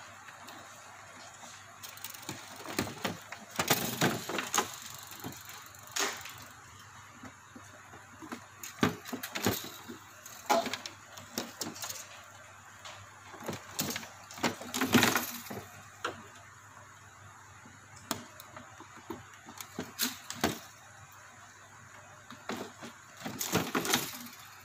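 Irregular small clicks, taps and rustles from wires and plastic wire connectors being handled and fitted on an air cooler's control circuit board.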